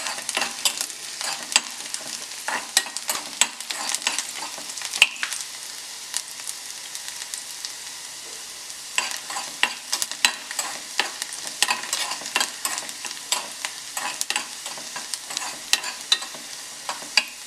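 Julienned ginger and garlic sizzling lightly in a spoonful of coconut oil in a metal kadai, being sautéed just until their raw smell goes, with a metal spoon scraping and clicking against the pan as they are stirred. The stirring stops for a few seconds midway, leaving only the sizzle, then starts again.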